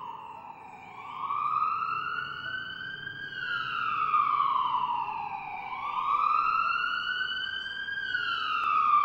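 Emergency vehicle siren in a slow wail, its pitch rising and falling twice, each sweep taking about five seconds.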